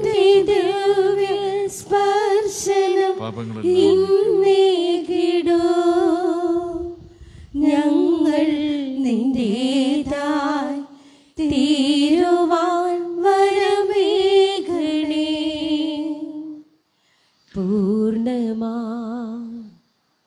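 A woman singing a Malayalam offertory hymn with vibrato, in long held phrases with short breaks, the last phrase ending just before the end.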